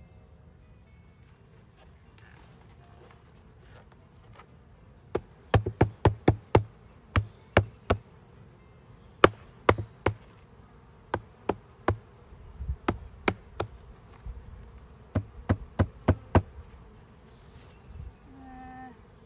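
Sharp knocks of wooden hive parts being handled, coming in quick runs through the middle, over a steady high hum of insects and bees around an open beehive.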